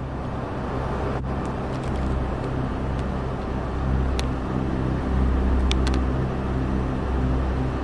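Steady low engine hum of a vehicle under a wash of wind-like noise, with a few sharp clicks about one, four and six seconds in.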